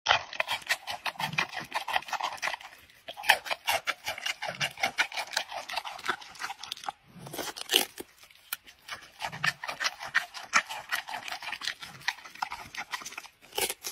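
Giant panda chewing a chunk of pumpkin: rapid, dense crunching bites, with short pauses about three seconds in and again around seven to eight seconds.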